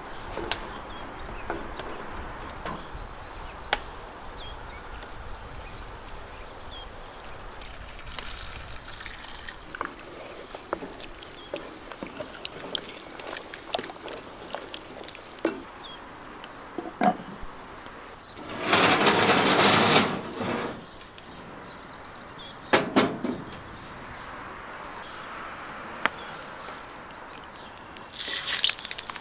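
A wooden spoon stirring a simmering pot of lamb and chickpea stew, with scattered clicks and knocks and a loud rush of noise lasting about two seconds midway. Near the end, cooking oil is poured into an empty pan.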